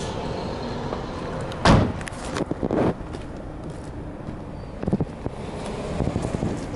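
Toyota RAV4 doors being worked: a door shuts with a loud thump about two seconds in, followed by a brief rattle of knocks, then another clunk just before five seconds as the side-hinged back door is opened.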